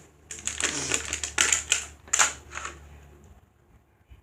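Plastic packaging crinkling and tearing in hands, a quick run of sharp crackles, as a layer of an LOL Surprise blind ball is unwrapped; it dies away about three seconds in.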